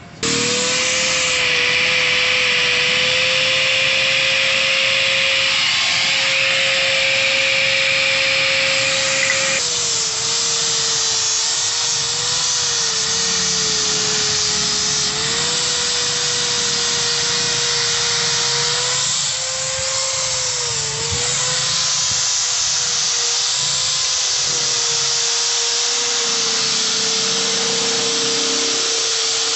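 Electric angle grinder with a polishing disc running continuously against a motorcycle's steel exhaust pipe. The motor gives a steady whine over a rubbing hiss. The hiss is strongest for the first ten seconds, then lighter, and the whine dips in pitch briefly several times as the disc is pressed harder.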